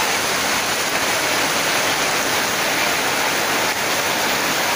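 Torrential rain drumming on a tin roof, a dense, steady hiss with no break.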